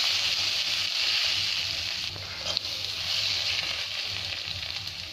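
Scrambled egg and onion masala sizzling in oil in a kadai while a metal spatula stirs through it, with one sharper scrape about halfway through. The steady hiss slowly grows quieter.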